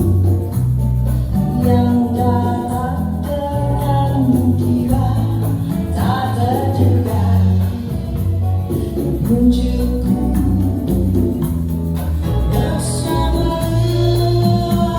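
A song with a sung vocal over a prominent electric upright bass line, the bass moving note to note.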